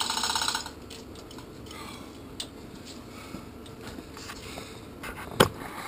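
Chain hoist and lifting chains on a shop crane rattling fast for about half a second as a hanging boat engine is handled, then scattered light clicks of chain and metal, and one sharp knock about five seconds in.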